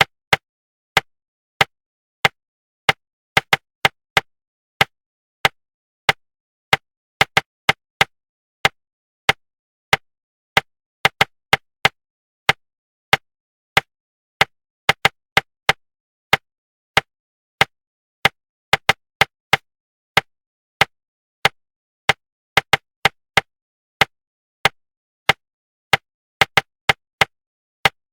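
A tapping rhythm of short, identical, sharp knocks, mostly about two a second with quick pairs and triples mixed in, and silence in between: a rhythm-tap pattern used to keep the inner voice quiet while speed reading.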